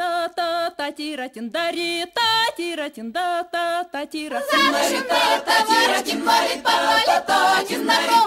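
Unaccompanied singing. A single high voice with vibrato sings short separate notes, and from about four and a half seconds in a fuller group of voices takes over.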